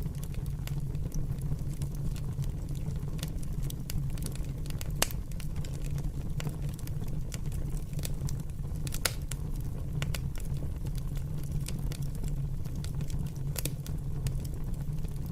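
A fire crackling, with frequent irregular sharp pops and snaps over a steady low rumble.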